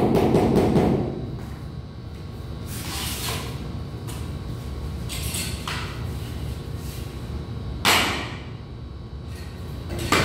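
A burst of rapid knocking in the first second, then several separate rough scrapes of a long-handled hoe dragging cement mortar over the concrete subfloor. The last two scrapes, near the end, are the loudest.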